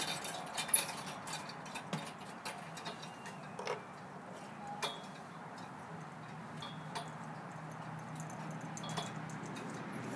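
Scattered light clicks and knocks as someone moves about and climbs on a wooden porch. A few brief, faint high chirps sound in between.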